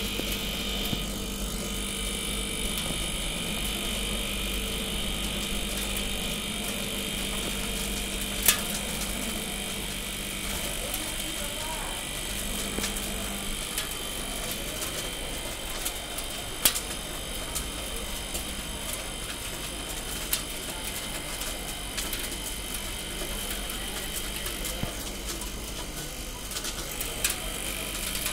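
Cotton candy machine running, its motor spinning the heated head that throws out pink sugar floss: a steady mechanical whir. A low hum drops out about halfway through, and a few sharp clicks stand out.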